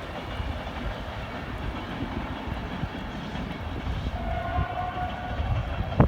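A train running past on the line with a steady rumble. About four seconds in there is a brief steady tone lasting about a second, and right at the end a sharp knock.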